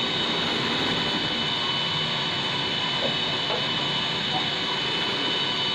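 Steady running noise of bakery machinery: an even rush with a thin high whine over it, and a few faint clatters about three seconds in.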